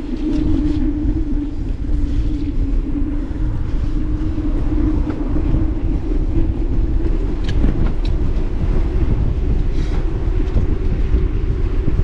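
Wind rushing over the microphone of a mountain bike moving at speed, with a steady hum from the bike running along the road and a few light clicks.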